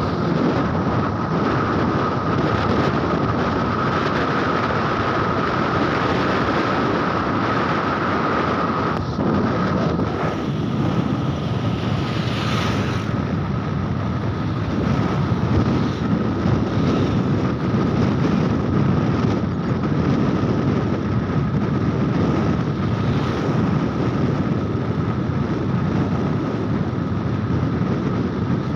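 Wind buffeting the microphone on a moving motorcycle, over the steady run of its engine and tyres on the road, with a thin steady whine throughout. A brief hiss rises about twelve seconds in.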